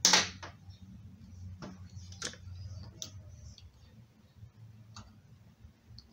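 Scattered small clicks and taps as multimeter probe tips are set down on an LED bulb's circuit board: one sharp click right at the start, then a few lighter ticks spread over the next five seconds.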